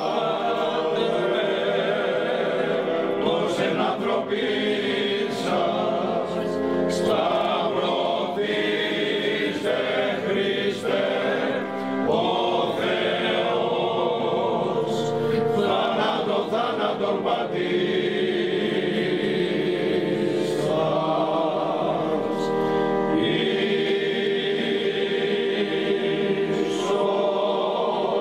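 A choir chanting in long held notes that shift slowly from one pitch to the next.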